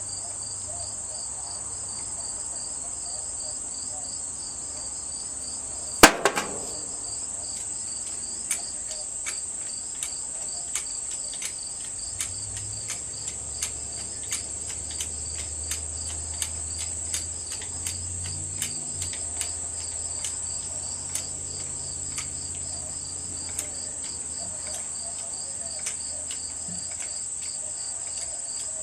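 Crickets chirping steadily, with one sharp knock about six seconds in and then a run of light clicks, roughly one or two a second.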